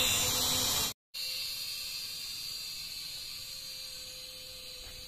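Faint steady hiss with a thin steady hum, cut by a moment of dead silence about a second in.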